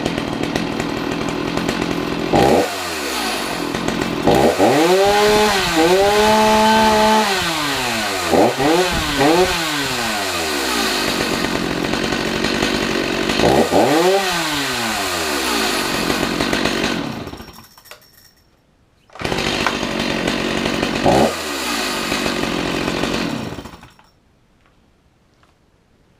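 Stihl MS 310 two-stroke chainsaw running warm, idling between several quick throttle revs, then shut off. It restarts hot about a second and a half later, revs once, and is shut off again.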